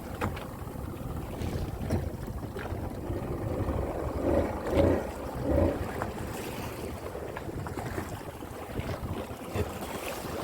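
Wind buffeting the microphone over water washing around a small boat, with a few louder dull bumps about four to six seconds in.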